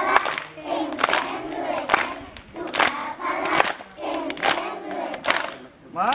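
A large group of children singing together in unison and clapping their hands in time, roughly one clap a second.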